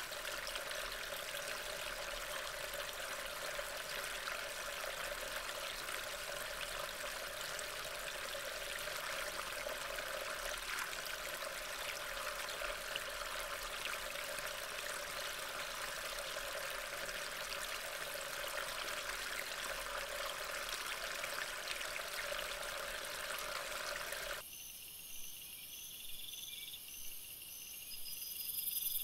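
Steady hiss of heavy rain during a thunderstorm, even and unbroken. About 25 seconds in it cuts off abruptly, and crickets are heard chirping in thin, high, pulsing trills.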